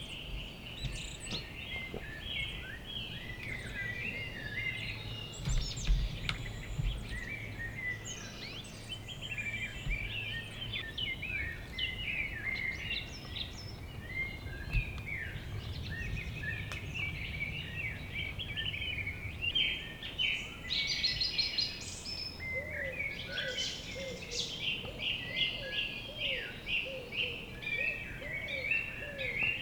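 Several woodland birds singing together, many overlapping chirps and short song phrases. From about two-thirds of the way through, a lower call repeats steadily underneath, over a faint low rumble.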